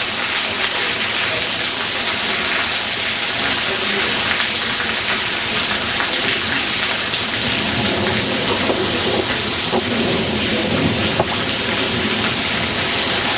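Heavy downpour, a dense, steady hiss of rain, with a low rumble of thunder swelling in the second half.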